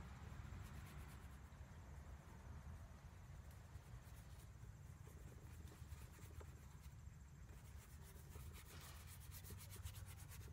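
Faint rubbing and scratching of a brush laying oil paint onto canvas, over a low steady rumble, with a quicker run of strokes near the end.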